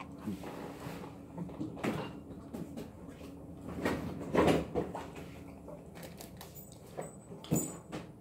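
A few knocks and bumps of handling, the loudest about four and a half seconds in and another near the end, as a large plastic water bottle is picked up and tipped up to drink.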